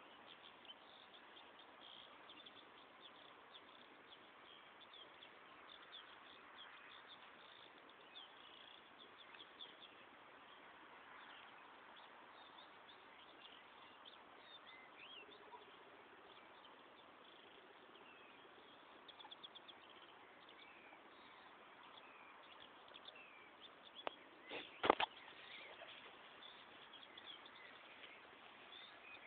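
Faint birds chirping, many short high calls scattered throughout. A sharp knock about 25 seconds in is the loudest sound.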